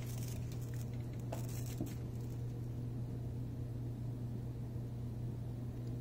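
Steady low hum, with a few faint ticks and taps in the first two seconds.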